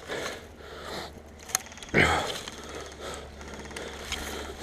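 A man breathing hard and letting out a pained breath about two seconds in, after being hit on the backside by an airsoft BB. There is a sharp click shortly before it.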